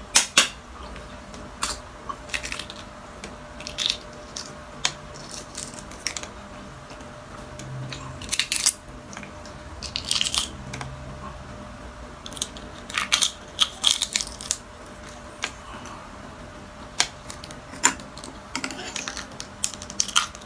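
Balut eggshell being cracked and picked off by fingers: irregular small sharp cracks and clicks, some in quick clusters.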